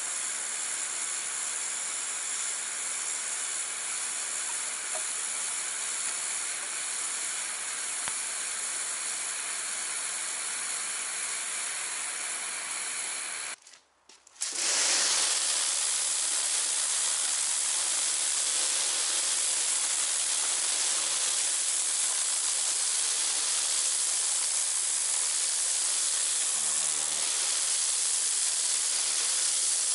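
Kärcher K2 Compact pressure washer's jet spraying water onto a rough concrete wall: a steady hiss. It cuts out for a moment about halfway through, then comes back louder and brighter.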